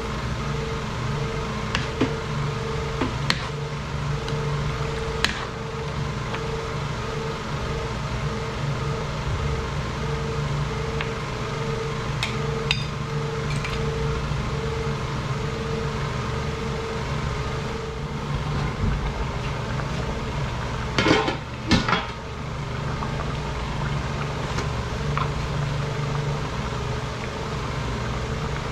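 Metal ladle clinking against a metal wok now and then as a sauce is stirred, over a steady hum. There is a louder double clatter about two thirds of the way through.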